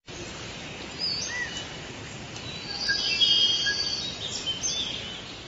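Forest ambience: several birds chirping and whistling over a steady background hiss, with a busier stretch of calls in the middle.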